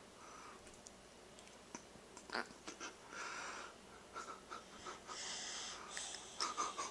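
Faint, soft breathing with a few small mouth clicks.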